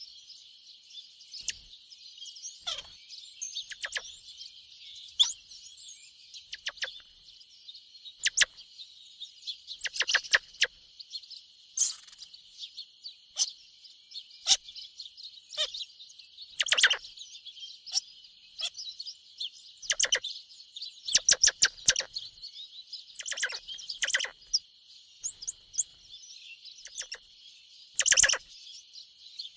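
Squirrel calling with short, sharp chirps, some single and some in quick runs of several, over a steady high hiss.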